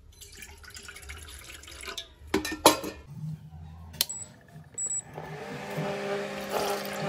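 Milk pouring from a jug into a steel pot, then two sharp clanks. A wall switch clicks on, an induction cooktop gives two short high beeps, and from about five seconds in its fan hum starts with a rising tone.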